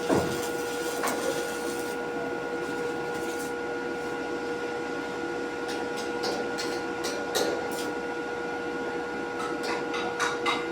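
A steady machine hum with a constant tone running through it, joined by sharp clicks or taps that come more often toward the end.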